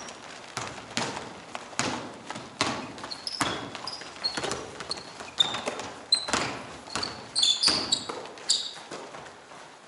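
Basketball bouncing again and again on an indoor court, the bounces coming at uneven intervals, with short high squeaks of sneakers on the floor, most of them bunched together late on.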